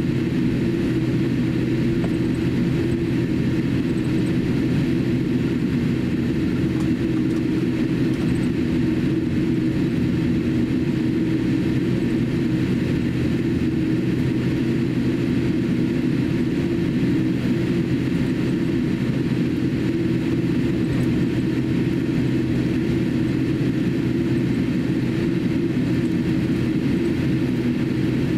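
Steady cabin noise inside a Boeing 787-8 airliner taxiing, its GEnx turbofan engines at low taxi power giving a constant low hum with a few steady tones.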